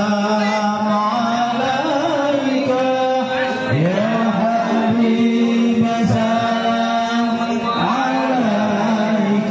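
Islamic devotional chanting in Arabic, a sung melody of long held notes that glide from one pitch to the next without a break.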